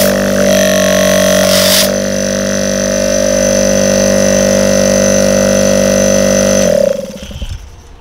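Opened-up Hitachi FL0845-SK refrigerator compressor running, its motor and piston giving a loud, steady hum, with a short burst of noise about two seconds in. Near the end it is switched off: the hum cuts out and a low rumble fades as it runs down.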